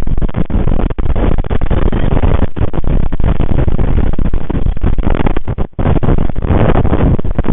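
Strong wind buffeting the nest camera's microphone: a loud, gusty rush strongest in the low end, with a couple of brief dropouts.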